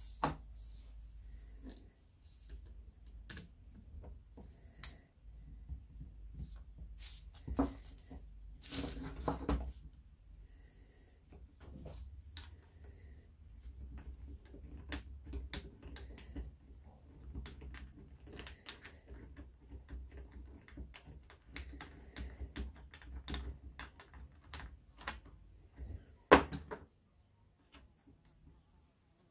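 Irregular clicks and light metal knocks from a motorcycle front brake master cylinder and its alloy brake lever as they are handled and fitted together, with a spanner working at the lever pivot. A busier run of knocks comes about eight to ten seconds in, and the sharpest click comes near the end.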